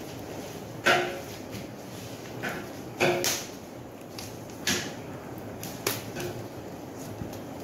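Banana leaves being laid over vegetables in a large metal cooking pot: about four brief, crisp rustles and light knocks against the pot as each leaf goes down, over a steady background hiss.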